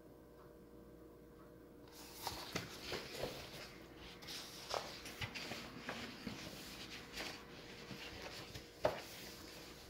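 Paper pages of a picture book rustling and being turned and handled close to the microphone, with irregular clicks and taps. It starts about two seconds in after a stretch of quiet room hum, and the sharpest tap comes near the end.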